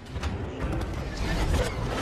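Animated-logo sound design: a low rumble with a scatter of sharp mechanical clicks, like clockwork gears meshing, under cinematic music.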